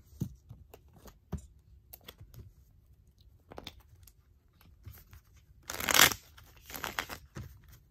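Tarot cards being handled over a newspaper-covered table: soft taps and slides as cards are drawn from the deck and laid down. There is one loud papery rustle of the cards about six seconds in, and a shorter one a second later.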